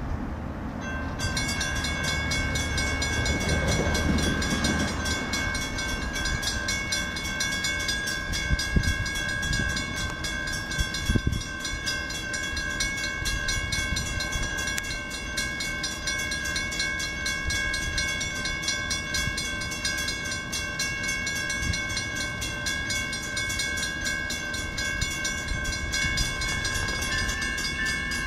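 Railroad crossing bell ringing rapidly, starting about a second in, over the low rumble of an approaching passenger train, with a couple of sharp knocks partway through.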